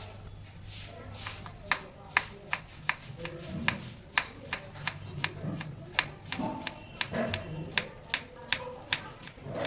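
Kitchen knife chopping vegetables on a cutting board: a run of sharp, irregular strikes, about two to three a second.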